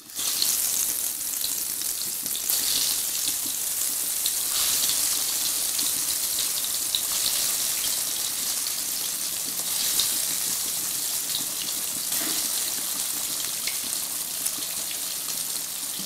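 Parboiled potato halves deep-frying in hot mustard oil in a kadai. The sizzle starts suddenly as they go into the oil and carries on as a steady, crackling hiss.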